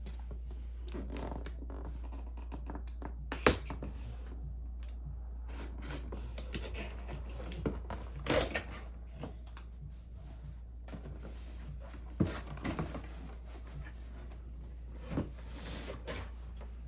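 Boxed goods and packaging being handled and unpacked: scattered knocks and thunks with soft rustling between them, the sharpest knock about three and a half seconds in, over a steady low hum.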